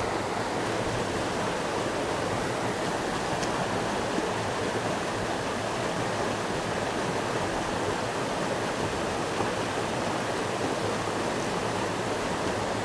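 Creek water running steadily over a small falls and riffle, an even, unbroken rush of flowing water.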